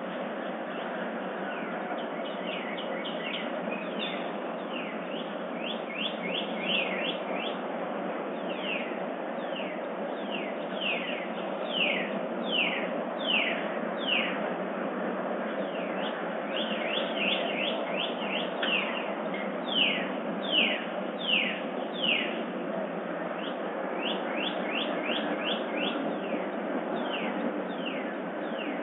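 Dawn chorus birdsong: songbirds repeating runs of quick down-slurred whistled notes, loudest in two stretches in the middle, over a steady low background noise.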